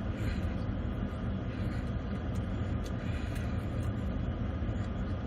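Steady low rumble of a car idling, heard from inside the cabin, with a few faint clicks of chewing.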